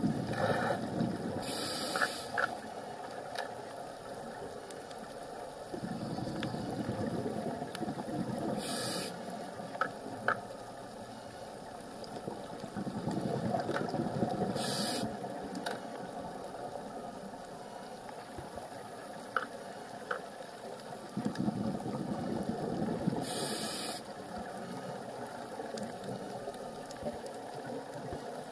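Scuba diver breathing through a regulator underwater: four sharp hisses of inhaled air a few seconds apart, and longer bubbling rumbles of exhaled air between them, with scattered faint clicks.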